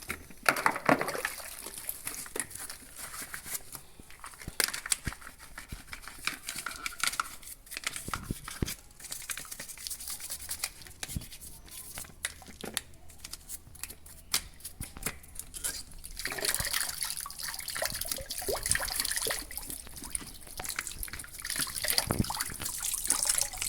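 Water splashing and dripping as washing machine parts are rinsed and scrubbed, with scattered clicks and knocks of plastic being handled. About two-thirds of the way through, a steadier rush of water begins.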